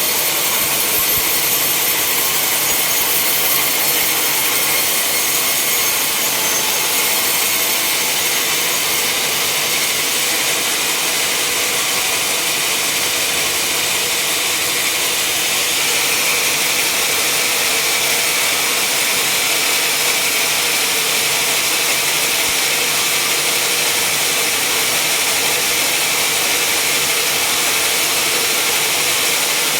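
Sawmill saw cutting through a log, a loud, steady mechanical noise with most of its sound high-pitched, running without a break.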